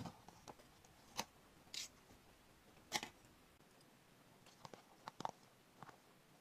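Faint handling sounds of a paper instant-noodle cup: a short papery rustle as the lid comes off, then metal chopsticks clicking and tapping against the cup as the noodles are stirred and lifted, a few separate sharp clicks.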